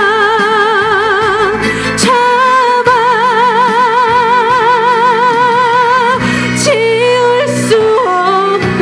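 A woman singing a sorrowful ballad live over a backing of strings, holding long notes with wide vibrato: a short held note, a breath, then one held for about four seconds, and shorter notes near the end.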